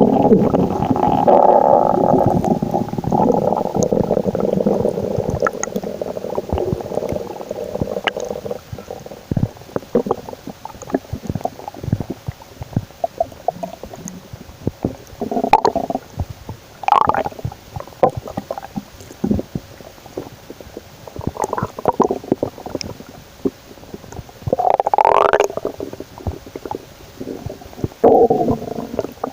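Human stomach growling and gurgling. A long, loud, low rumble over the first several seconds fades out, giving way to scattered small clicks and gurgles, with a few short louder gurgles later on, one of them rising in pitch.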